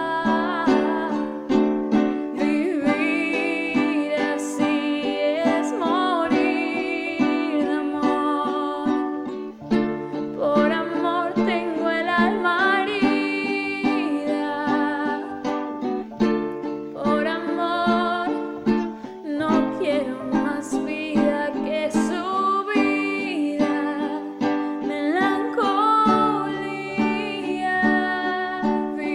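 Venezuelan cuatro strummed in a steady rhythm, changing between D7 and G chords. It plays along with a backing track of a woman singing a ballad.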